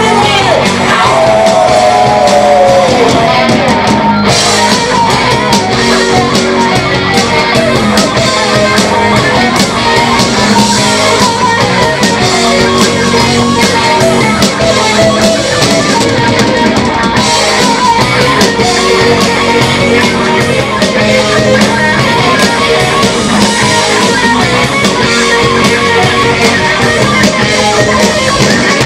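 Live rock band playing loud: electric guitars over bass and drum kit, with a falling pitch glide in the first few seconds.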